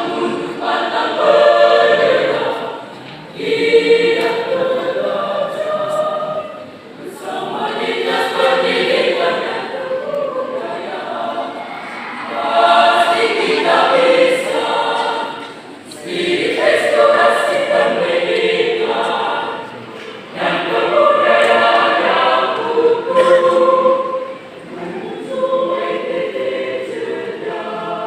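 Mixed four-part choir of sopranos, altos, tenors and basses singing. The phrases last a few seconds each, with brief breaks between them.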